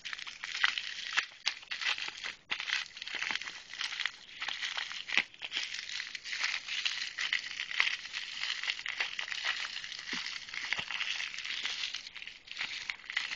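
Clear plastic wrapping crinkling as it is handled and pulled open by hand, a continuous run of small crackles.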